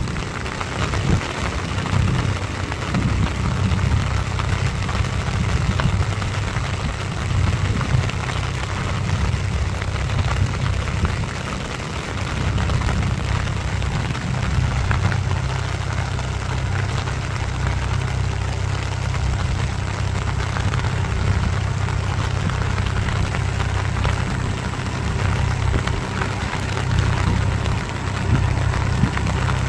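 Swaraj tractor's diesel engine running steadily under load as it drives a rotary tiller through a flooded paddy field, over the hiss of heavy rain.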